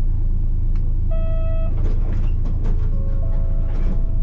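Nissan Diesel KC-RM211GSN city bus's FE6E diesel engine running under way: a steady low rumble from a bus singled out for its abnormally loud running noise. A short electronic beep sounds about a second in, with a few light clicks and rattles after it.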